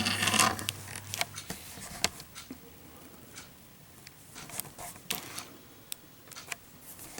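Light handling noises of a small cardboard Zippo box: scattered sharp clicks and taps, with a short rustle near the start.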